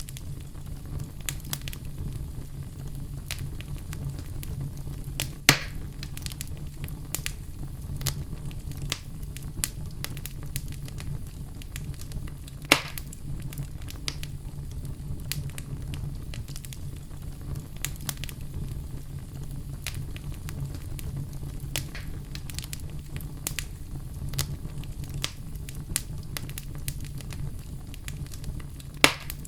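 Wood fire in a fireplace crackling, with frequent sharp pops over a steady low rumble. Three louder pops stand out: about five seconds in, about thirteen seconds in, and near the end.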